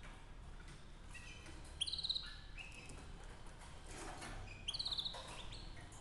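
Domestic canary singing: scattered short chirps and two loud phrases of fast, evenly repeated high notes, the second coming about three seconds after the first.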